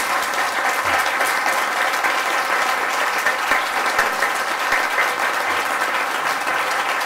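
A large audience applauding: many people clapping in a steady, sustained round.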